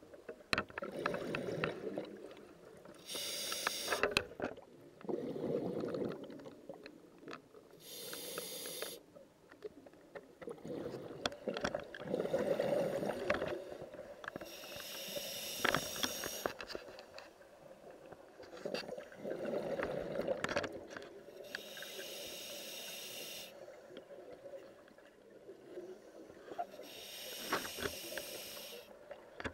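Scuba regulator breathing underwater: a hissing draw on each inhale and a burst of bubbles on each exhale, about every five to seven seconds, with small bubble clicks between.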